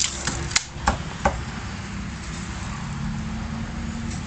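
Cleaver chopping roast chicken on a thick wooden chopping block: about five sharp chops in the first second and a half, then a steady low hum for the rest.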